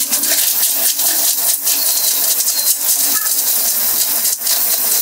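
Small personal blender grinding dry kibble into powder: a loud motor whir with hard kibble pieces rattling and clattering inside the cup.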